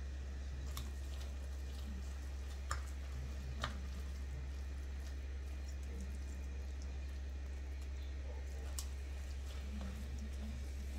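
Spatula stirring and mashing soft cooked pumpkin in a saucepan: soft squishy sounds with a few sharp clicks of the spatula against the pan, two louder ones about three and four seconds in, over a steady low hum.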